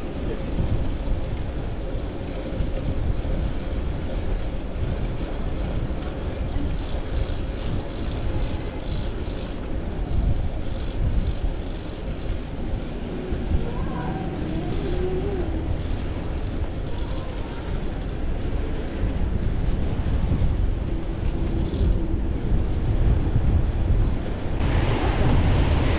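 Wind buffeting the microphone of a bicycle rider moving through rainy city traffic, a steady rough rumble with the hiss of tyres on a wet street. The hiss grows louder near the end.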